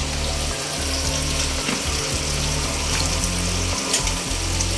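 Pieces of catla fish shallow-frying in hot oil in a kadai, sizzling steadily.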